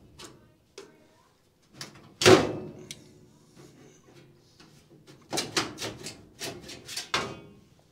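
Sheet-metal access panel of an old furnace being worked loose and pulled off by hand: a loud clank about two seconds in, then a quick run of knocks and rattles near the end.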